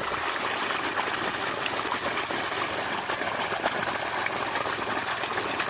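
Water gushing steadily from the outlet hose of an engine-driven water pump, with the engine throttled to under half.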